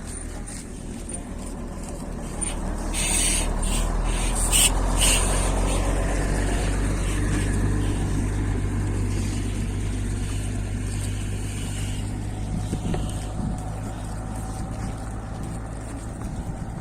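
An engine running steadily at low revs, growing louder about three seconds in, with a few sharp clacks soon after.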